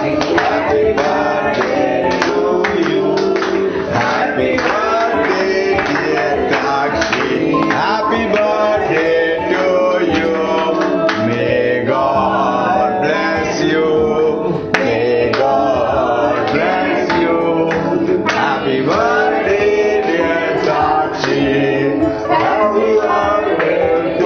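A song, with a voice singing over instrumental accompaniment.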